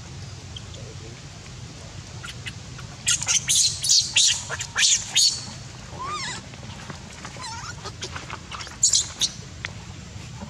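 Baby macaque crying: a quick run of shrill, high-pitched squeals about three seconds in, a wavering, lower whimper a little later, and a few more shrill squeals near the end.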